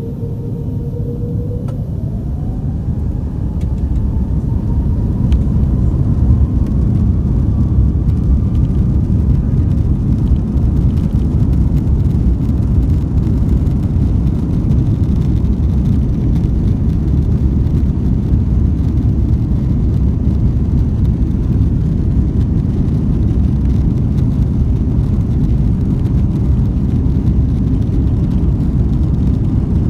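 Airbus A330-300 twin jet engines spooling up to takeoff thrust, heard inside the cabin: a whine rises in pitch over the first several seconds as the sound grows louder. Then a steady, loud low rumble of the engines and the runway roll continues.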